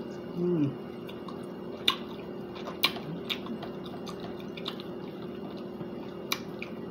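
Someone eating chicken wings: scattered wet mouth clicks and smacks from chewing, about five in all, with a short hummed 'mm' about half a second in. A steady low hum runs underneath.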